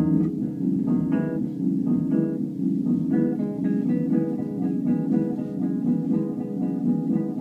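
Live instrumental music: an electric guitar plucked through a Laney amplifier over a steady low drone. A few scattered plucked notes give way about three seconds in to a denser, even run of notes.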